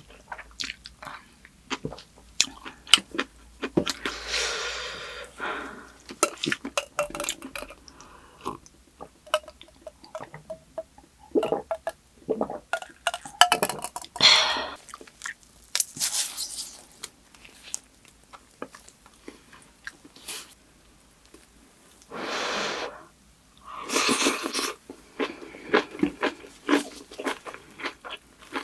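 Close-miked eating sounds: a person chewing and crunching kimchi with rice, with many small wet clicks and several louder, longer crunching or slurping stretches.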